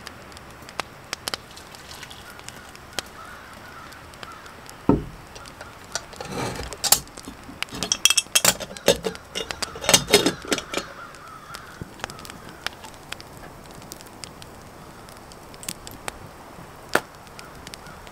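Metal camp pot and cup clinking and knocking: a dull thump about five seconds in, then a busy run of clinks and clatter for several seconds as the pot of boiling water is handled and set back on the stove. Faint small crackles run underneath.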